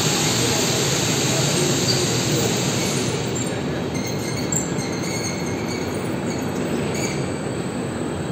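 Automatic ton-bag truck loader's overhead gantry and hoist running as it lowers a bulk bag onto a truck: a steady mechanical rumble and hiss, with faint high squeaks in the second half.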